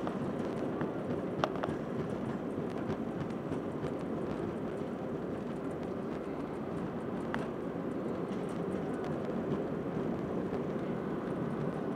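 Steady cabin noise of an Airbus A320 rolling along the runway after landing: engine and wheel-rolling rumble with light rattles, and a sharp click about a second and a half in and another near the middle.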